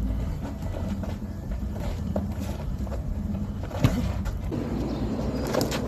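Boxing gloves landing punches in sparring: a few sharp thuds, the loudest near four seconds in, another about two seconds in and one near the end, over a steady low rumble.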